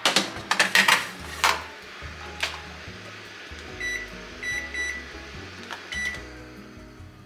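A metal baking tray clatters as it is slid onto the rack of a Toshiba oven and the door is shut. Then the oven's touch panel gives several short high beeps as the baking time is set and started.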